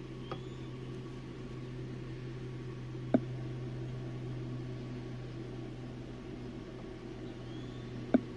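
A steady low hum, with two sharp clicks about five seconds apart.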